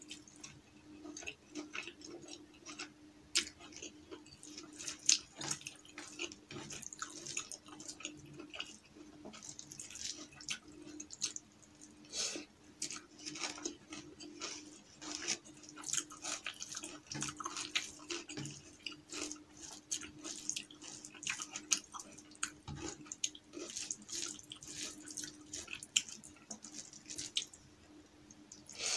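Close-miked eating by hand: wet chewing and mouth sounds with many short, sharp clicks, along with fingers squishing rice and dal together. A faint steady hum runs underneath.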